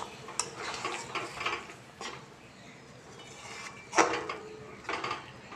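A spatula stirring and scraping a thick masala paste in a metal kadai, with clinks of the spatula against the pan, and one louder scrape about four seconds in.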